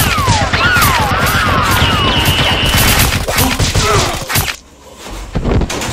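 A long, rapid burst of dubbed gunfire sound effects mixed with whizzing, falling ricochet-like tones, cutting off about four and a half seconds in; a few separate thuds follow near the end.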